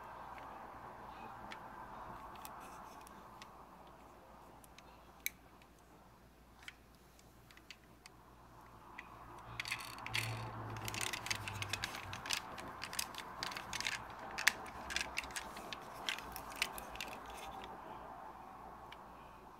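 Diecast metal Ram pickup model being handled: small scattered clicks at first, then a run of dense clicking and ticking lasting several seconds in the middle as its moving parts are worked.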